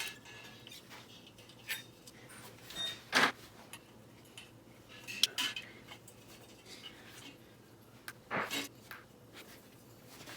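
Metal tools and small engine parts clinking and knocking now and then as an air-cooled VW Type 1 engine is taken apart by hand. The loudest knocks come about three seconds in and again about eight seconds in.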